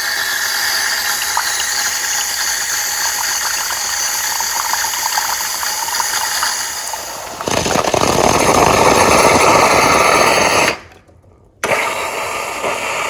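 Fully automatic espresso machine heating milk from its milk carafe with a steady hiss. About seven and a half seconds in, it turns louder and rougher, sputtering and splattering as the carafe runs out of milk and the system draws air. It cuts off abruptly, and after about a second's pause the machine starts running again.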